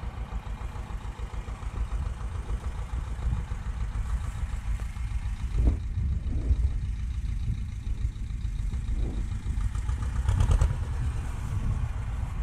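Vladimirets T-25 tractor's two-cylinder air-cooled diesel engine running with a low, pulsing rumble and some rattling. It swells louder twice, about halfway through and near the end.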